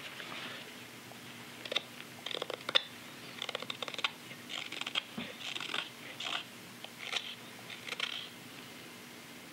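Carving knife paring thin shavings from a green sycamore belt cup: a series of short, crisp slicing strokes in irregular bunches, the wet wood cutting softly.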